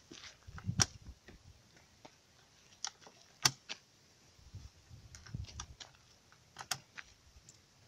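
7.62×39 cartridges being pressed one at a time into a rifle magazine: a handful of sharp metallic clicks at irregular intervals, with a few soft handling knocks.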